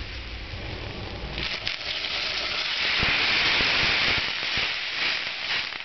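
Boiling water poured into a hot stainless-steel pot of couscous toasted in oil, hissing and sizzling as it hits the hot pan. The hiss starts about a second and a half in, is loudest in the middle and dies down near the end.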